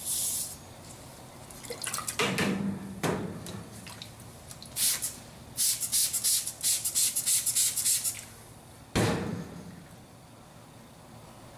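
Hand spray bottle squirting liquid onto a carbon-steel knife blade, the trigger pumped in a quick run of short hissing sprays about five to eight seconds in. Two splashy liquid sounds come before and after it.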